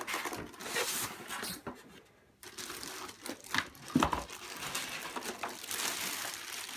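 Packaging wrapped around a robot vacuum being pulled open and handled, crinkling and rustling, with a dull knock about four seconds in.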